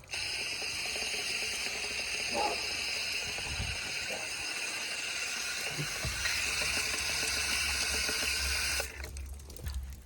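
Steady spray of water rinsing the dirt out of a clogged AC condenser coil. It stops abruptly near the end.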